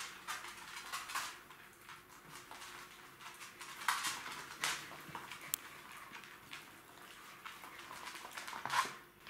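Jack Russell Terrier puppies scampering in play, their claws clicking and scrabbling on a hard floor in quick irregular patters, with a few sharper clicks about a second in, around four seconds in and near the end.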